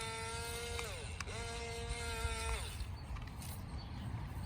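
Small electric motor and gears of a toy RC excavator whining twice, each run about a second and a half, the pitch sagging as the motor stops.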